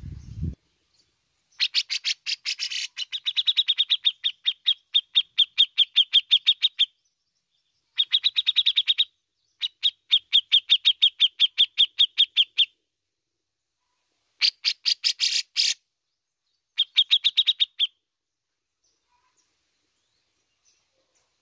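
Grey-cheeked bulbul (cucak jenggot) calling in rapid runs of sharp chipping notes, about six a second, in five bursts of one to five seconds with short gaps. The bursts about two seconds in and about fourteen seconds in are harsher and rasping. The bird falls silent for the last few seconds.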